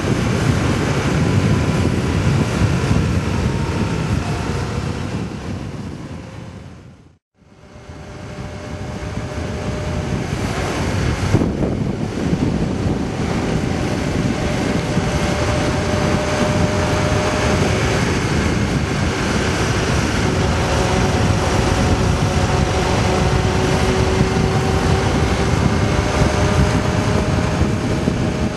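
Motorcycle riding along at speed: a steady rush of wind over the microphone with the engine's hum underneath, its pitch drifting slowly. About seven seconds in, the sound fades out to silence and straight back in.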